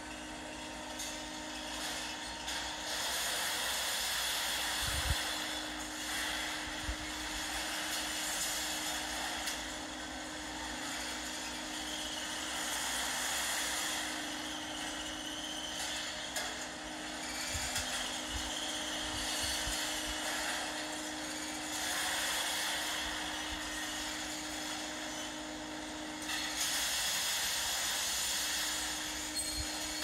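Steady industrial noise of an induction furnace melt shop during scrap charging: a continuous rushing hiss with a steady hum, swelling and easing slowly, and a few dull low thumps. It is heard through a computer's playback.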